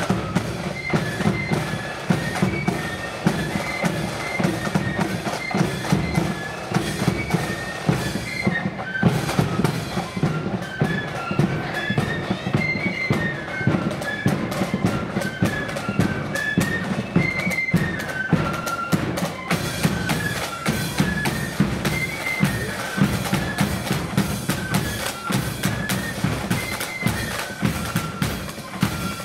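Blood-and-thunder marching flute band playing: many flutes sounding a high, repeating tune in unison over constant snare-drum strokes and bass-drum beats.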